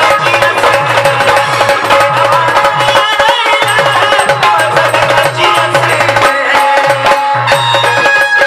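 Marathi gondhal folk music played without singing: a fast, driving drum rhythm over a repeating low beat, with a held drone and a wavering melody line on top.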